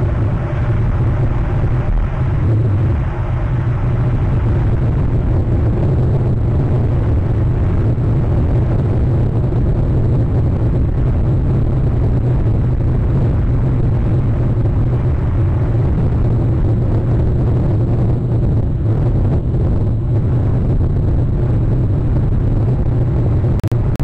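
Steady low rumble of wind buffeting an outdoor nest-camera microphone, with no bird calls.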